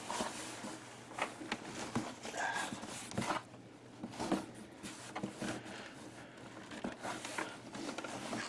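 Cardboard box scraping and rustling with scattered light knocks, as hands try to grip a CRT monitor wedged tightly inside it.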